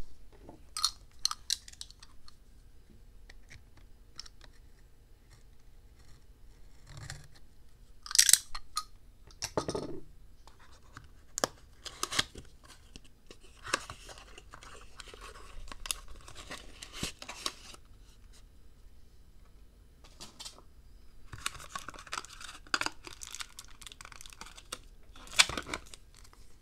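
Small cardboard box being opened by hand: paperboard flaps and packaging tearing, scraping and rustling, with scattered sharp clicks and taps as the paper insert and moulded tray are pulled out.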